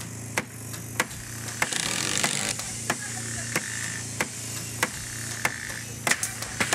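Sharp knocks repeating at a fairly even pace, about every two-thirds of a second, with a few coming quicker near the end, over a steady hum.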